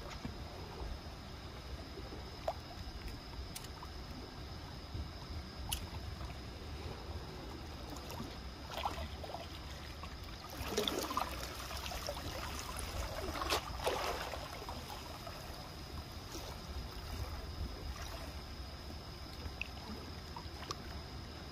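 Sea water lapping and trickling at the harbour edge over a low steady rumble, with scattered small splashes and a louder cluster of them around the middle.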